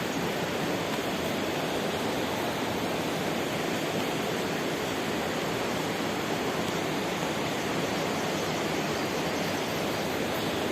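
Steady rushing of flowing river water, an even noise with no bird calls standing out.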